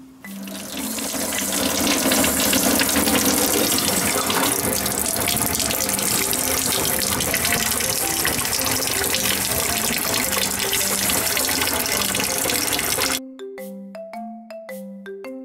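Steady rush of running water that cuts off suddenly near the end. A light background tune in mallet percussion plays throughout.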